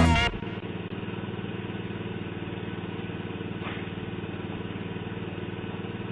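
A steady low hum with several even, unchanging tones, heard through a doorbell camera's tinny, narrow-band microphone, cutting off suddenly near the end. A song cuts off just as it begins.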